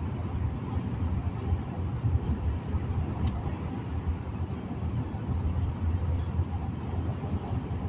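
Steady low rumble of road and engine noise inside a moving car's cabin on a highway, with a faint click about three seconds in.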